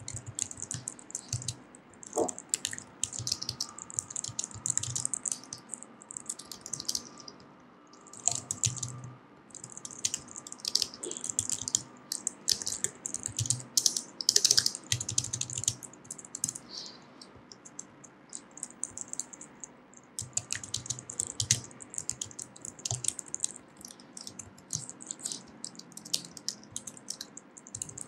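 Typing on a Logitech MX Keys low-profile scissor-switch keyboard: runs of soft, quick key taps, pausing twice. It is almost silent, quite unlike a noisy mechanical keyboard.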